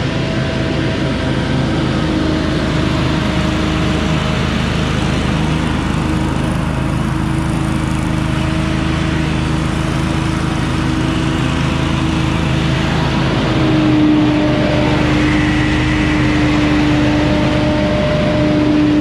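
Gas-engine leaf blower running steadily, its engine note holding constant, then growing a little louder and stronger near the end.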